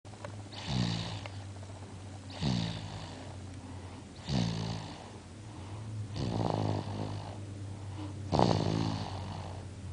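A three-month-old baby snoring, five snores about two seconds apart, each dropping in pitch as it fades.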